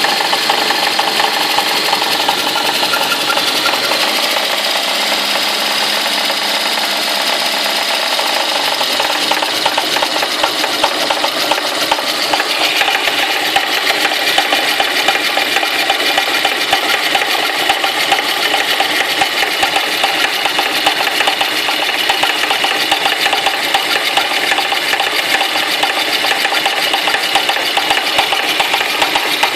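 Running engine of a Lada 110 (VAZ-2110) with a steady, fast knocking from the alternator drive pulley: a sign of a faulty pulley.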